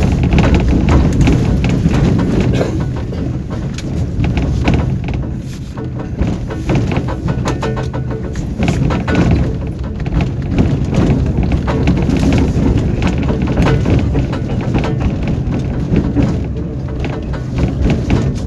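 Interior noise of a moving tram: a loud steady low rumble and hum from the running gear, with frequent knocks and rattles of wheels over the rails.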